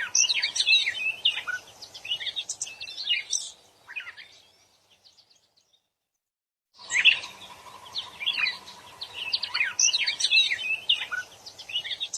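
Wild bird singing a fast, varied song of chirps and twitters, with a faint steady hum underneath. The song fades out about four seconds in, leaves about two seconds of silence, then starts again.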